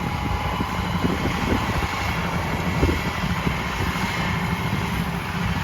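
Yanmar 820 combine harvester's diesel engine running steadily, with a thin steady whine above the engine noise.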